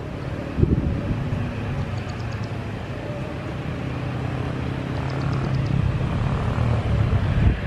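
Jet engines of a Boeing 737 running at low power as it turns at the runway end, a steady low rumble that grows a little louder near the end.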